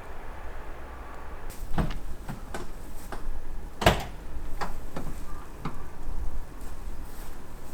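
A series of irregular knocks and clunks of hard objects being handled, about eight in all, the loudest about four seconds in.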